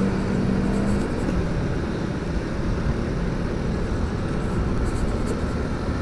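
Steady riding noise from a Motorstar Easyride 150 motorcycle at cruising speed in traffic: its engine hum drops back about a second in, under a constant rush of wind and road noise.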